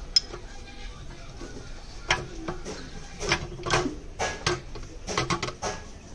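Irregular metallic clicks and clinks of tools and engine parts being handled, with one sharp click just after the start and a denser run of knocks from about two seconds in.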